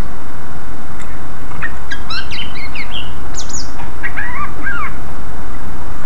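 Cucak ijo (green leafbird) singing: two bursts of quick, varied chirping and whistled notes, one about a second and a half in and a shorter one around four seconds in. A steady loud low rumble and hiss runs beneath the song.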